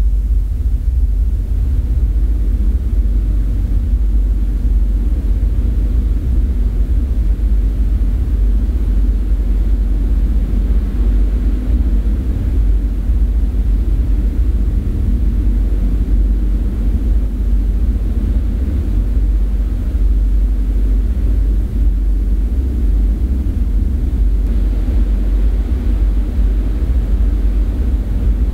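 A steady, low rumbling drone that holds at an even level throughout, with no distinct events.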